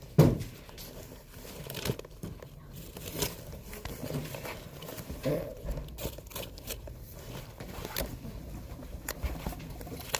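Scattered knocks, clicks and rustling, with one sharp knock just after the start and faint voices here and there.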